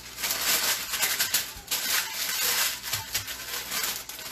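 Paper crinkling and rustling in irregular clumps as it is handled and folded.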